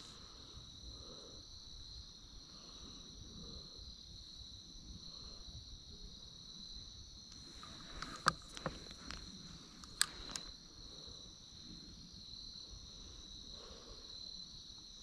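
Crickets singing in a steady, continuous trill, with a few short sharp clicks about eight and ten seconds in.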